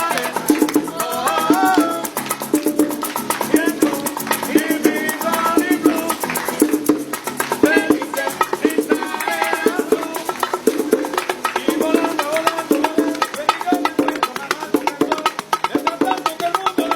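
Latin-style music with a fast, steady shaker rhythm, knocking percussion and a wavering melody over it.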